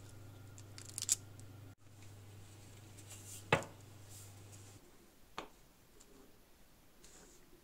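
A few sharp clicks and light taps from a metal cookie cutter and baking tray being handled, with a faint steady hum behind them. About five seconds in, the hum stops and a crisp baked biscuit clicks as it is set down on a wooden board.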